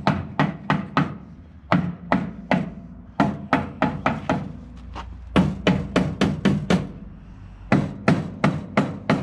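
Claw hammer striking a wooden door frame in quick runs of blows, several a second, with short pauses between runs, knocking the frame into place.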